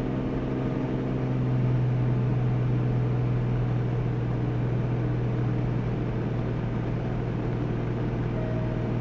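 Cessna Corvalis 400's turbocharged six-cylinder engine and propeller droning steadily in flight, heard from inside the cabin; the low hum swells slightly about two seconds in.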